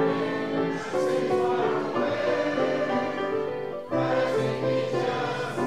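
A church praise team singing a gospel hymn together in harmony, with a brief break just before four seconds in.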